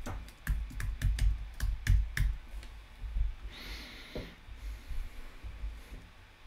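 Typing on a computer keyboard: a quick run of key clicks for about two seconds, then a few scattered clicks, with a brief soft hiss about three and a half seconds in.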